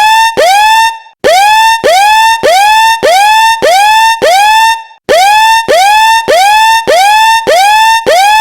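Loud electronic alarm tone of repeated rising siren-like whoops, about two a second, in runs of about seven with a short break every four seconds or so.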